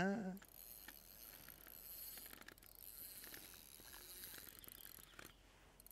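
Near silence: faint outdoor background hiss with a few faint ticks.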